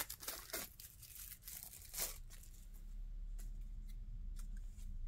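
Wrapping on a pack of game cards torn and crinkled in a few short rustles, the first at the very start and another about two seconds in. A steady low hum lies underneath and grows from about three seconds in.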